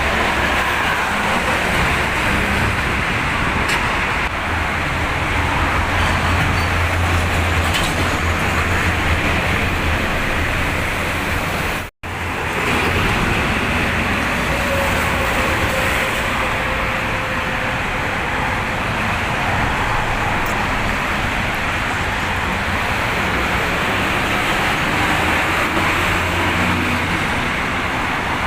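Steady noise of fast traffic, buses and cars, passing on a multi-lane toll highway, with a low rumble under it. The sound cuts out for an instant about twelve seconds in.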